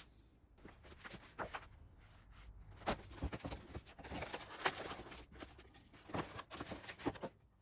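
Handling noise from work on a miter saw: an irregular run of clicks, knocks and scraping, the loudest knocks about 3 and 4.7 seconds in.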